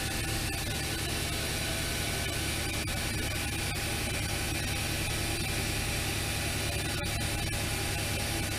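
Steady hum and hiss of a powered-up Fadal VMC 6030 CNC vertical machining center running, with a constant low electrical hum under it.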